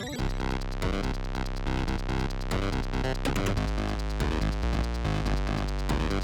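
Upbeat electronic background music with synthesizer and a steady drum-machine beat.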